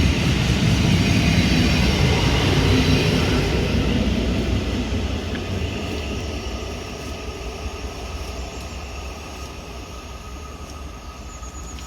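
Electric multiple-unit train pulling out and running past, a steady rushing of wheels and traction that fades away over the second half as it leaves.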